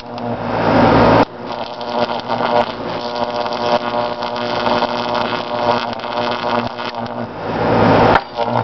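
High-voltage arc from a pole-pig transformer buzzing harshly as it burns onto a TV high-voltage rectifier vacuum tube. The buzz breaks off about a second in, starts again at once, and cuts out near the end.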